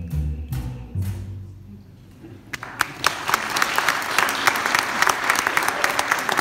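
The last notes of an upright bass and acoustic guitar ring and die away, then about two and a half seconds in a small audience breaks into steady applause.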